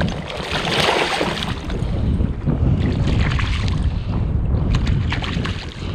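Wind buffeting the microphone in a steady low rumble, with a burst of splashing about a second in as a hooked brown trout thrashes at the surface.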